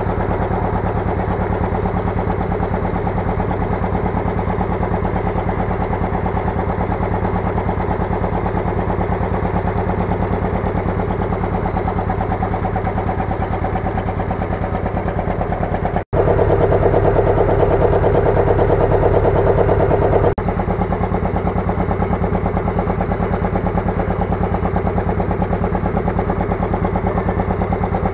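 A fishing boat's engine running steadily with a fast, even beat. It is a little louder for a few seconds from about sixteen seconds in.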